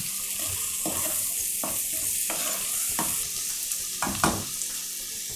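Chopped onion, capsicum, green peas and tomato sizzling in butter and oil in a kadai on medium heat, with a wooden spatula scraping and stirring through them about once a second.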